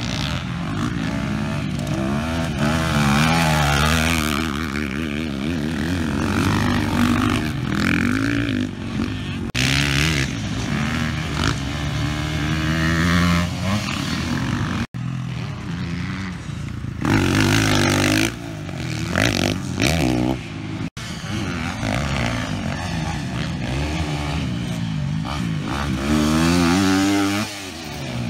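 Motocross dirt bike engine revving hard on the track, its pitch rising and falling again and again as the rider accelerates, shifts and backs off. The sound cuts out abruptly twice, for an instant each time.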